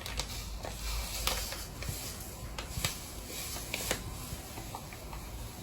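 Quiet handling of groceries: scattered light clicks and knocks with soft rustling over a low room hum.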